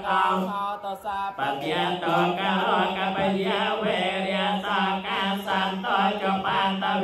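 Theravada Buddhist paritta chanting in Pali, recited on a steady low monotone with a brief pause about a second in.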